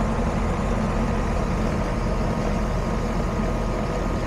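Air-conditioning condensing unit running steadily, its compressor and condenser fan giving a continuous hum.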